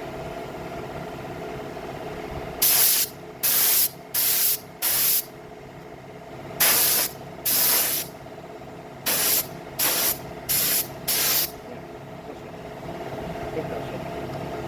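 Paint being sprayed onto motorcycle frame parts in ten short hissing bursts of about half a second each: four, a pause, two, a pause, then four more. A faint steady hum runs underneath.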